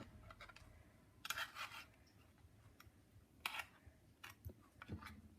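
Fork scraping sardines out of a tin into a bowl: a few faint, short scrapes and taps, a cluster of them a little over a second in and another single scrape midway.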